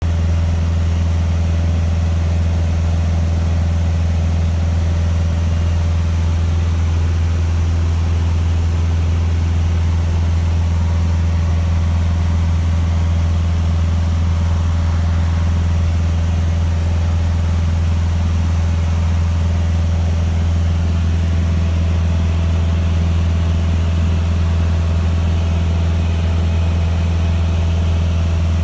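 1963 Cessna 150's four-cylinder Continental O-200 engine and propeller running steadily in flight, heard from inside the cockpit as a constant low drone.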